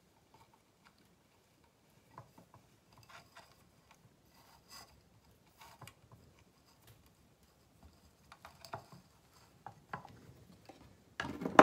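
Hands working and pressing bonsai substrate around a small tree in a glazed ceramic pot: faint scattered rustling and light clicks of soil and fingers against the pot, with one louder handling noise near the end.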